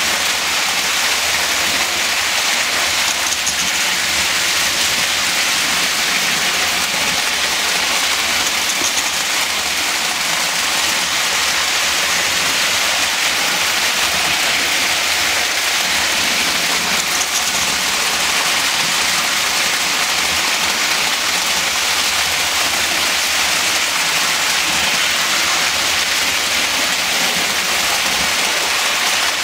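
Lionel model trains running on metal track: a steady, even rolling hiss of wheels on the rails.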